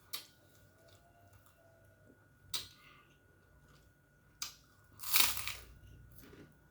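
A person eating with the mouth close to the microphone: chewing with a few sharp smacks, and a louder, longer noisy burst about five seconds in.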